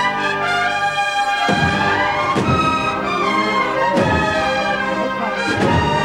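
Processional band playing a slow Holy Week march: a brass melody over heavy drum strokes about every one to one and a half seconds.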